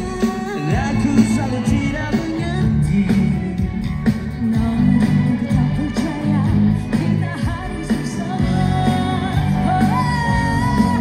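Pop duet sung live into handheld microphones over instrumental accompaniment, the vocal line gliding and holding long notes over a steady low backing.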